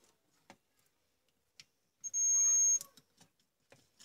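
DT9205A digital multimeter's continuity buzzer giving one steady high beep, about two seconds in and lasting under a second, as the probes bridge the CFL tube's filament pins: the beep signals a closed circuit through the filament. Soft clicks of the probe tips tapping on the pins come before and after it.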